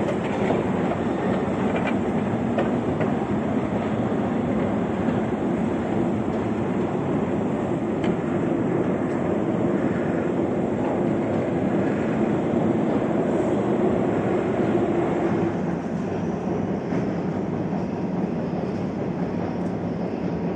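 Metro escalator running: a steady mechanical rumble and hum from the moving steps and drive. It changes and eases about fifteen seconds in.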